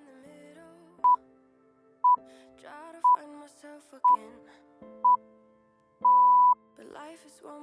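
Workout interval timer counting down: five short, high beeps one second apart, then one longer beep, marking the switch to the next exercise. Quiet background music plays underneath.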